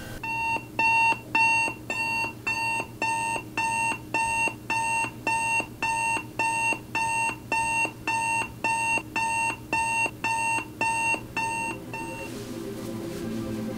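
Digital alarm clock beeping in a steady repeating pattern, just under two short high beeps a second, which stops abruptly about twelve seconds in. Soft music fades in after it.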